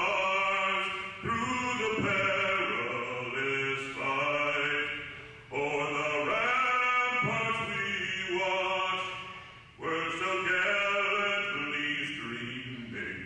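A slow patriotic song sung in long held notes, the phrases breaking off briefly about five and ten seconds in.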